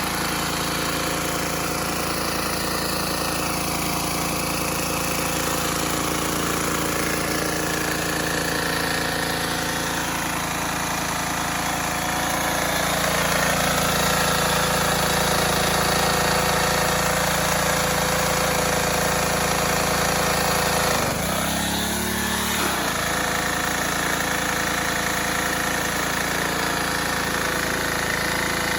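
Troy-Bilt pressure washer's small gasoline engine running steadily. It gets a little louder just before halfway, and its note dips briefly about three quarters of the way through, then recovers.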